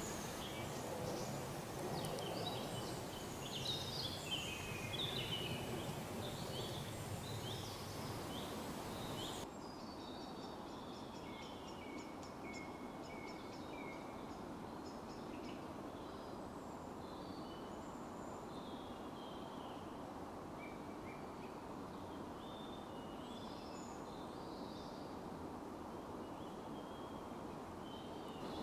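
Woodland ambience with several small birds singing in short, high chirps and phrases. About nine seconds in the background hiss drops suddenly, and the birdsong goes on more faintly.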